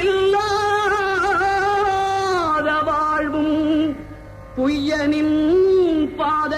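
Devotional singing in Carnatic style: a solo voice holding long notes with wavering ornaments, pausing for breath about four seconds in before going on.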